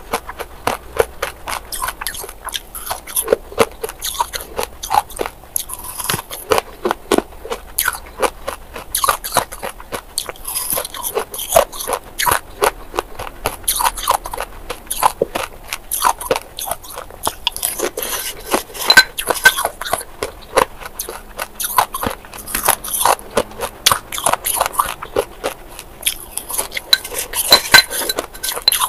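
Close-miked chewing of crushed ice: a rapid, irregular stream of sharp, crisp crunches and crackles as the ice pieces break between the teeth.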